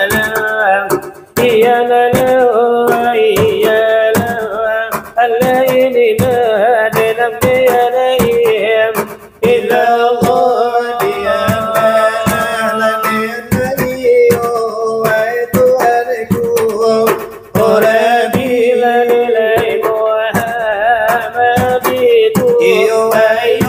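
Salawat dulang, Minangkabau devotional chanting: men's voices singing in a melismatic line over quick, rhythmic hand strikes on large brass trays (dulang), with a few short breaks between phrases.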